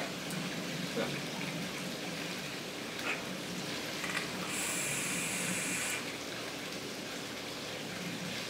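Vape dripping atomizer firing as it is drawn on, a bright hiss lasting about a second and a half near the middle, over a steady background hiss. A few light handling clicks come before it.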